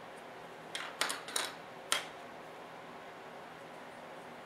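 Small plastic parts of an RC truck model kit clicking together as they are handled and fitted by hand: a quick cluster of four or five sharp clicks about a second in, then only a faint steady background hum.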